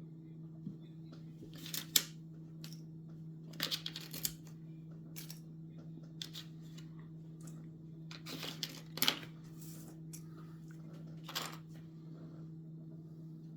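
Scattered clicks, taps and rustles of small 3D-printed plastic parts being handled, loudest about two seconds in and bunched in short clusters, over a steady low hum.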